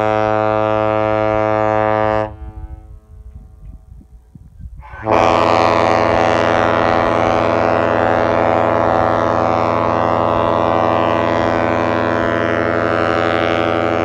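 Airchime KM85 and KM110 ship horns with bronze power chambers, pitched at 85 Hz and 110 Hz, blown on compressed air at about 40 psi. A deep, loud blast of about two seconds, then after a pause of about three seconds a long blast of about nine seconds.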